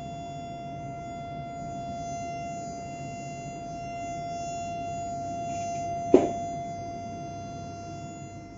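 Bluetooth speaker giving off a steady buzzing tone, the fault that has come on suddenly, with a single short thump about six seconds in.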